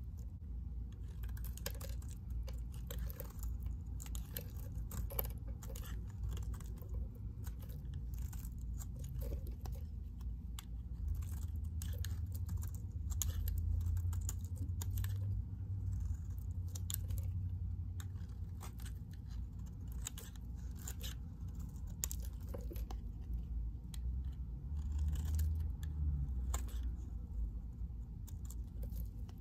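Snap-off utility knife blade shaving a bar of white soap: a quick, irregular run of crisp scraping crunches as curls and crumbs peel off, over a low rumble.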